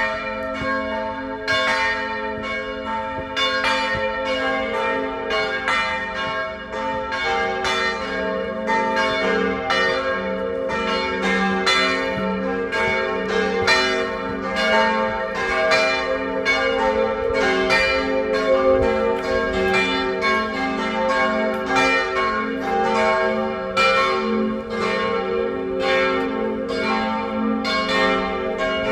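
Several church bells ringing together in a continuous peal: a steady stream of overlapping strokes at different pitches, each one ringing on under the next.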